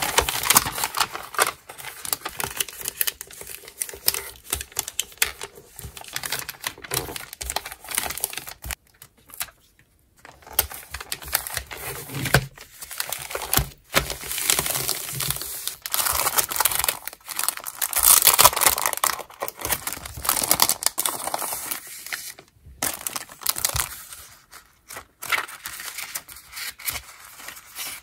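Wrapping paper crinkling and rustling as it is folded around a package and creased down by hand, in irregular bursts with a short lull about nine seconds in.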